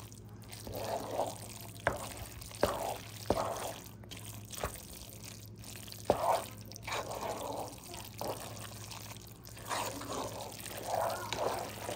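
A spoon stirring Hamburger Helper pasta and seasoning in a pot that still has a little water in it, making wet squelching sounds. The spoon knocks against the pot with a few sharp clicks over the first six seconds.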